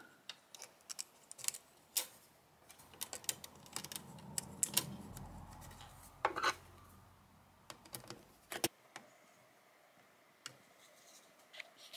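Scattered small clicks and taps of a circuit board and its plastic and metal mounting parts being handled and seated back in a VCR's front panel. A faint low hum runs through the middle and cuts off suddenly a little before nine seconds in.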